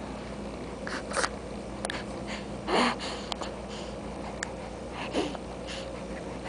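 Baby's short breathy grunts and sniffs close to the microphone, three of them a couple of seconds apart, over a steady low hum.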